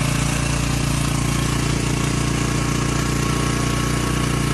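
A boat's engine running steadily at idle: a loud, even, low hum with a fast rattling pulse.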